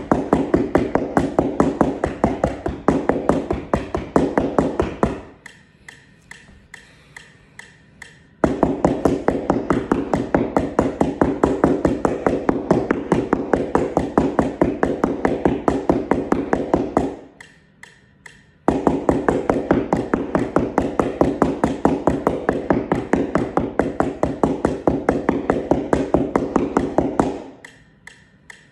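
Yarn mallets tapping on a flat printed keyboard mat on a carpet, a dull, unpitched patter of rapid, even strokes at about five a second. The strokes come in long runs, with pauses of a couple of seconds about five seconds in and again about seventeen seconds in.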